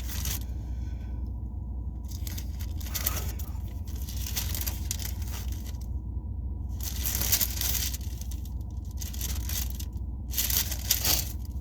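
Irregular rustling and scraping handling noise close to the microphone, in uneven stretches with short gaps, over a steady low hum.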